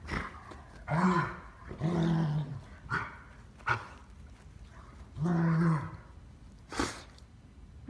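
A dog playing and giving three drawn-out growling woofs, about a second in, two seconds in, and again about five and a half seconds in. A few short clicks fall between them.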